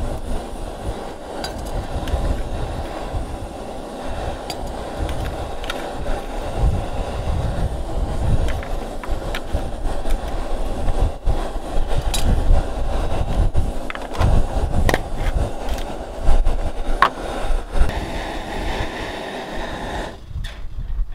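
Wind buffeting the microphone in a gusty, uneven rumble, with a few light clicks of a spoon against a small jar and mug.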